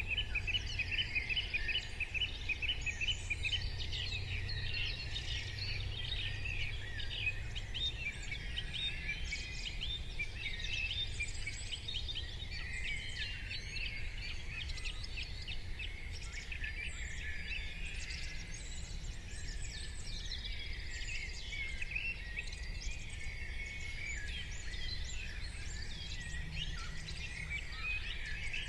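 Morning chorus of many small birds chirping and trilling at once, dense and continuous. A low, steady rumble sits underneath.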